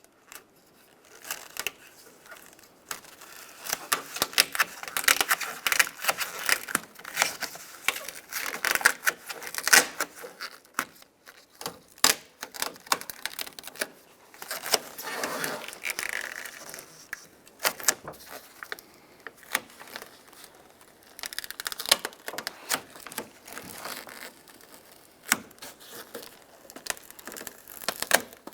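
Plastic door vapor barrier being peeled slowly off the sticky sealer that holds it to the metal door: crackling, tearing and crinkling in bursts with short pauses.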